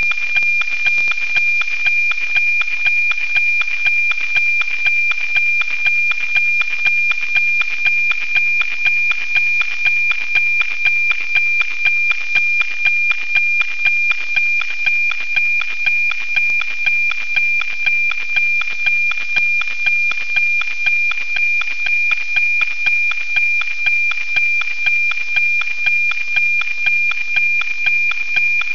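NOAA 19 weather satellite's APT picture signal, received by a software-defined radio and played as audio: a steady high whistling tone with a rhythmic tick-tock about twice a second. Each tick is one scan line of the weather image coming in.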